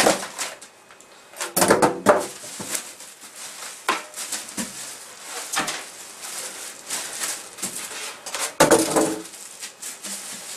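Polystyrene foam packing end caps and a plastic dust bag being handled as a PC case is unpacked: irregular rustling, crinkling and scraping with small knocks, loudest in bursts about a second and a half in and again near nine seconds.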